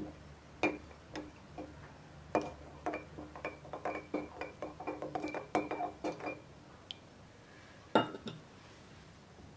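Light clinking knocks of a hard object that rings at the same pitch with every strike. There are a few spaced strikes, then a quick irregular run of about a dozen, then one louder knock near the end.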